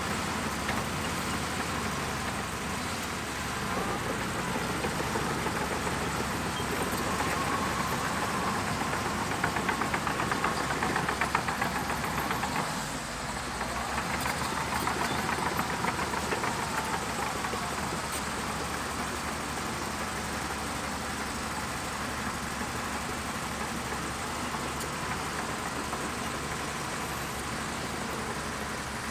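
Diesel engine of a crawler bulldozer running under load. Its note climbs and grows louder over several seconds, drops away sharply about thirteen seconds in, then runs steady.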